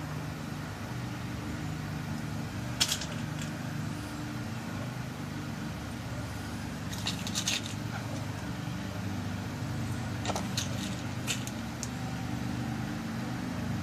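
Small, sharp metal clicks in a few scattered groups as new key pins are dropped into a lock cylinder's pin chambers during rekeying, over a steady low hum.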